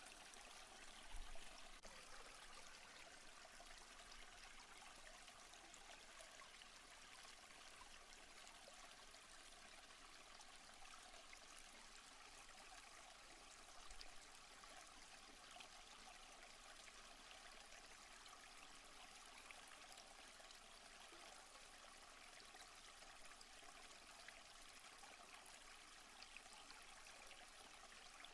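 Faint, steady sound of running stream water. Two soft low thumps come through it, one about a second in and one near the middle.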